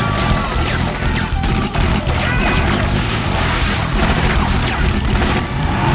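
Action-film sound mix of rapid automatic gunfire and crashing, smashing impacts, with the film score playing underneath.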